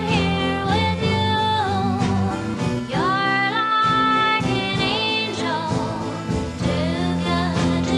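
Early-1960s doo-wop ballad record: a high female voice singing long, gliding notes over a slow band accompaniment with guitar.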